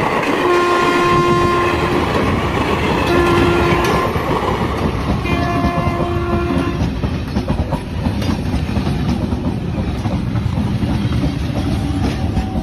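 Indian Railways passenger train running past close by, its wheels rumbling and clacking on the rails, with three horn blasts in the first seven seconds.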